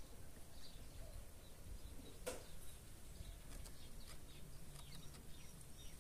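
Faint outdoor ambience with a low rumble, a single sharp click about two seconds in, and faint short chirps of small birds in the second half.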